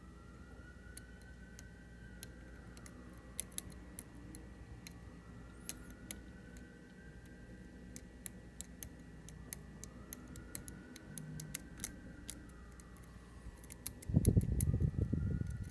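Light, irregular metallic clicks and ticks of a lock pick working the pins inside a Medeco high-security lock cylinder as the pins are lifted and rotated. Near the end there is a louder low rumble lasting about a second and a half.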